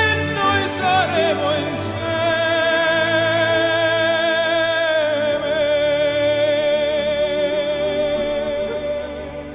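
Closing bars of an orchestral ballad: a long wavering note is held over sustained chords, steps down once midway, and fades near the end.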